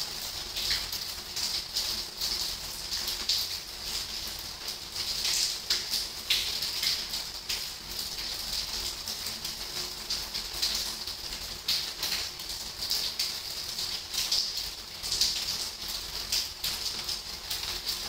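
Rain falling: a steady hiss packed with many irregular drop ticks, some louder and closer than others.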